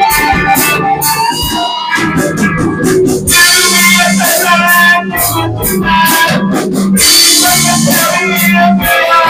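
Live band music: electric guitar and organ over bass and drums, with the cymbals opening up about three seconds in.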